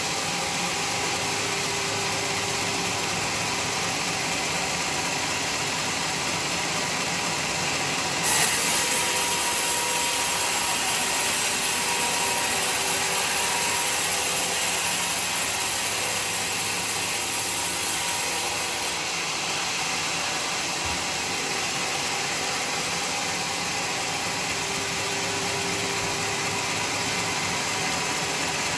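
Band sawmill running with a steady mechanical noise. About eight seconds in, a louder, higher hiss sets in suddenly and lasts about ten seconds.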